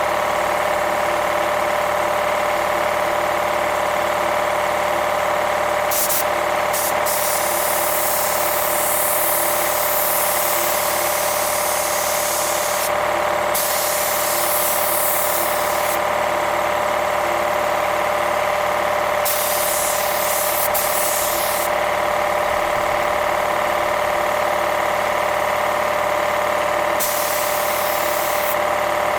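Air compressor running steadily, with several spells of hiss from a spray gun laying down primer, each a few seconds long.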